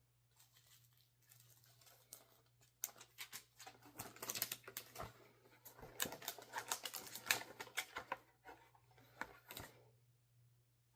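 Rapid, faint clicking and tapping of small hard objects being handled, busiest in the middle and stopping shortly before the end.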